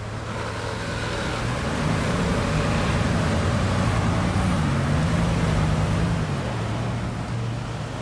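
Bugatti Veyron's quad-turbo W16 engine running at low speed as the car creeps along the street, its low note rising a little in the middle and then dropping back, over street traffic noise.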